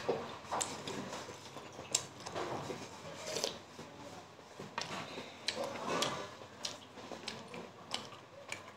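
Eating sounds: a plastic spoon clicking and scraping against a ceramic bowl of soup as it is stirred and sipped, with short slurping and chewing sounds between the clicks.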